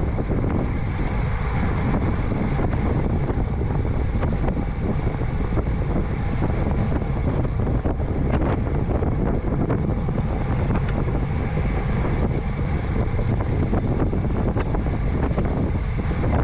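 Steady wind buffeting on a bicycle-mounted action camera's microphone while riding a road bike at about 22 mph, a constant low rumble with road noise under it.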